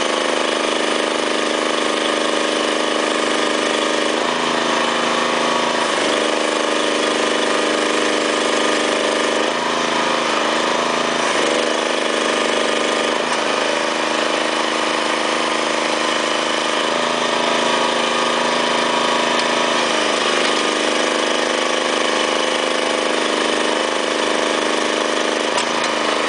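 Small engine driving a truck-mounted hydraulic well-pulling rig, running steadily while a monitor-well casing is pulled from cement grout. Its pitch dips and recovers several times as the load changes.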